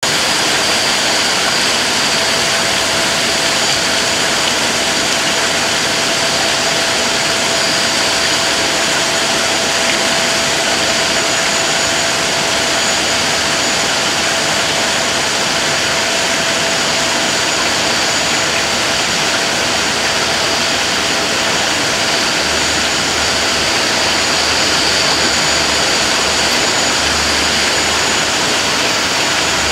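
Steady, loud rushing noise that does not change, with a faint high whine running through it; a low hum joins it during the last several seconds.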